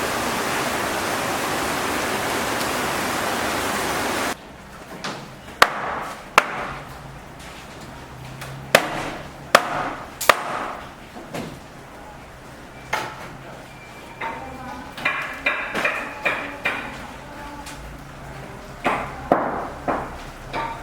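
Steady hiss of rain that cuts off abruptly about four seconds in, followed by irregular sharp hammer blows, a dozen or so spread unevenly, each with a short ring.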